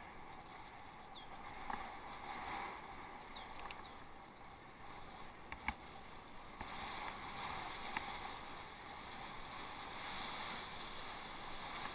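Bicycle riding off-road: a steady hiss of tyre and wind noise with a few clicks and rattles, growing louder a little past halfway.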